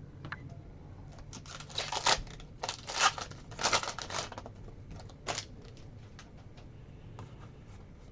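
Trading cards being handled and flipped through: a run of crisp snapping and sliding sounds for about three seconds, then a single snap, with faint ticks afterwards.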